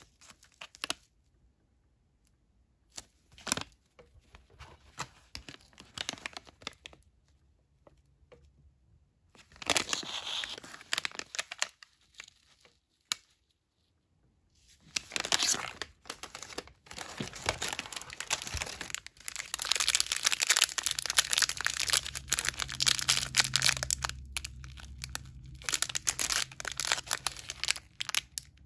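Sealed plastic MRE component pouches, a drink-powder pouch and an M&M's wrapper, crinkling and rustling as they are handled and turned over. At first there are scattered short crinkles, with a burst about ten seconds in. From about fifteen seconds a long stretch of dense, louder crinkling follows, then it thins out near the end.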